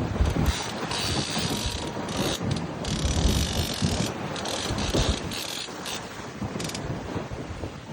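Mechanical ratcheting clicks over a steady noisy background, with wind buffeting the microphone and two stretches of stronger hiss, about a second in and again around three seconds.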